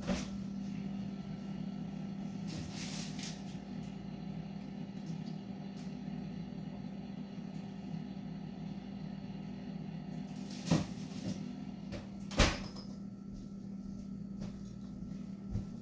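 Sharp knocks of a kitchen cupboard door being opened and shut, the two loudest about eleven and twelve and a half seconds in, over a steady low hum.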